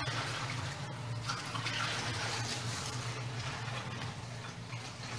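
Steady rush of running or sloshing water over a constant low hum.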